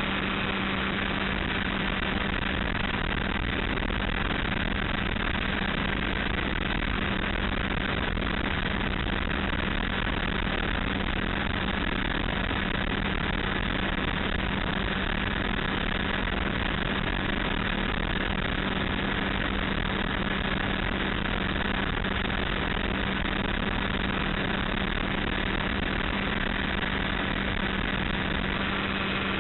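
Small light aircraft's engine droning steadily at cruise power, with wind rushing past the open cockpit frame, heard from inside the cockpit.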